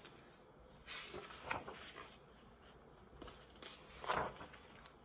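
Paper rustling as a large picture book is handled and a page is turned: a few soft rustles about a second in, and a louder one near the end.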